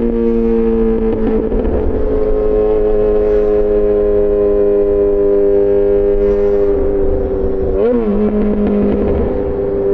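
Yamaha XJ6 S inline-four engine through an SC-Project exhaust, cruising at nearly steady, slowly falling revs. About eight seconds in it revs up briefly and drops to a slightly lower pitch, as at a gear change. Low wind rumble runs underneath.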